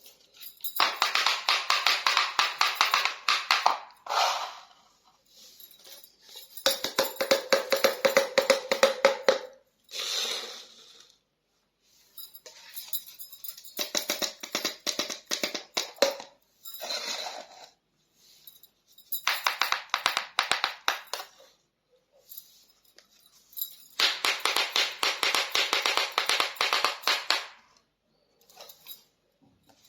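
Small plastic toy pieces being handled, in bursts of rapid clicking and rattling a few seconds long separated by short pauses.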